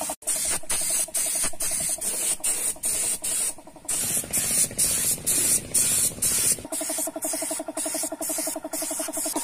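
Paint spray gun hissing as it sprays, the hiss broken by many brief gaps, over a steady low hum that drops away in the middle.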